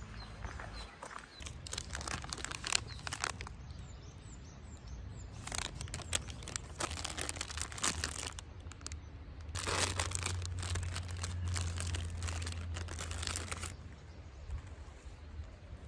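Thin plastic food wrapper crinkling and tearing as a bun is handled and unwrapped, in several bursts of rustling. The longest burst stops a couple of seconds before the end.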